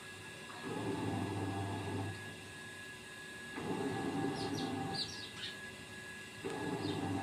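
Small birds give a few short, high chirps around the middle and once more near the end. Under them, a low rumbling noise swells and fades three times, each swell lasting about a second and a half.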